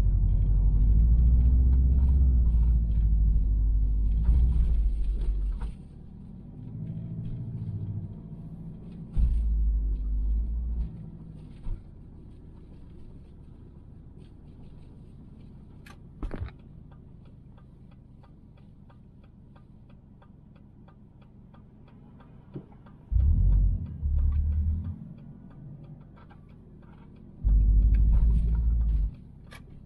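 Low road rumble inside the cabin of a moving 1999 Subaru Forester, swelling into heavy surges over the first five seconds, again about nine seconds in, and twice near the end. A sharp click sounds about halfway through.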